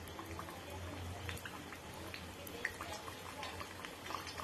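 Oil gently sizzling and crackling around a pastry chicken patty frying in a pan on a low flame, with scattered small pops, over a faint low hum.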